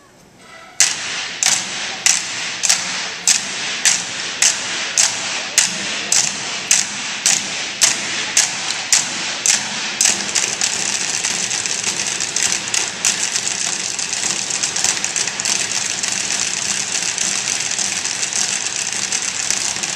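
A stage percussion ensemble beating out a steady rhythm, sharp strikes a little under two a second. About halfway through it breaks into a dense, continuous clatter of many hits together, which stops sharply near the end.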